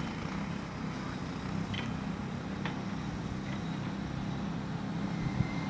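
An engine running steadily at a low hum, with a few faint clicks.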